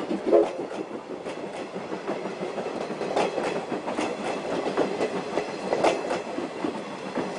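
Passenger coaches of a steam-hauled train rolling past close by, a steady rumble of wheels on rails with irregular sharp clicks as the wheels cross rail joints.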